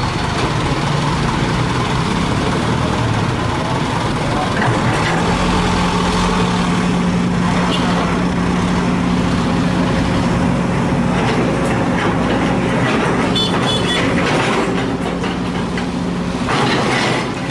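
Heavy diesel machinery running steadily at an earthworks site: the engines of the excavator and dump truck, with a steady engine note that settles in about five seconds in.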